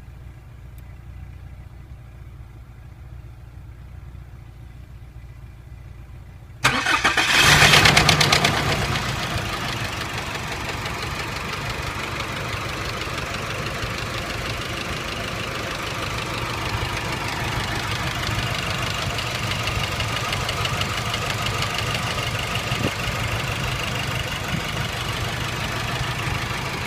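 Nissan Navara 2.5 dCi diesel engine starting after a few seconds of faint low hum: it fires suddenly about seven seconds in, is loudest for the first two seconds, then settles to a steady idle. The owner hears a knock at startup that persists after the oil pump was replaced.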